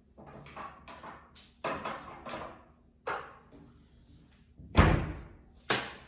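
A run of kitchen knocks and clatters from things being handled and set down, with a loud heavy thump about five seconds in and a sharp knock just after.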